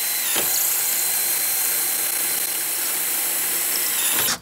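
Electric drill running at full speed with a gold twist bit, boring a bolt hole for the light bar's mount behind the truck's grille. The steady whine dips briefly about half a second in, then holds until it stops just before the end.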